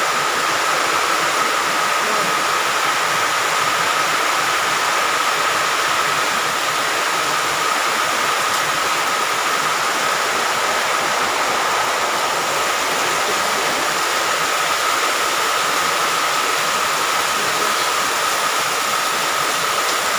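Heavy tropical rain pouring down steadily onto the roof, yard and porch, a constant loud hiss.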